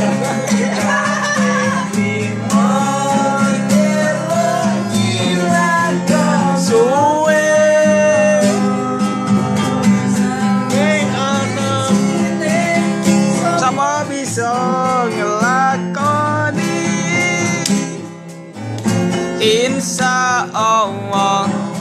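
Acoustic guitar music with a singing voice carrying a melody over it.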